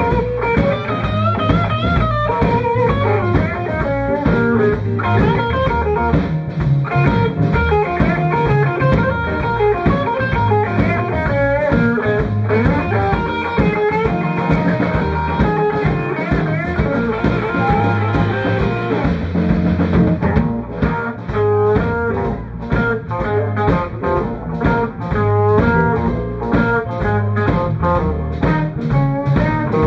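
Live blues band playing an instrumental passage: lead electric guitar with bent notes over drum kit and electric bass. The guitar part turns choppier about two-thirds of the way through.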